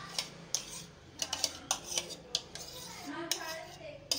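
Metal spoon tapping and scraping against a plastic bowl as thick yogurt is scooped out onto raw chicken, in a quick series of sharp clicks.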